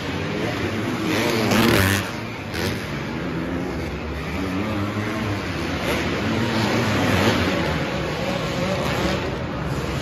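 Several motocross bike engines revving up and down over the jumps, overlapping one another, loudest about one to two seconds in.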